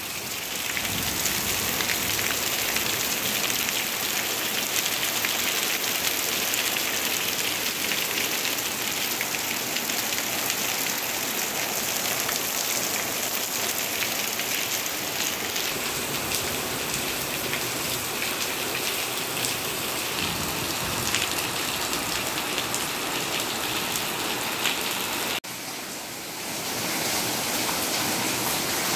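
Heavy rain falling, a steady dense hiss of drops. It cuts off sharply about 25 seconds in, comes back quieter, and builds up again within a second or so.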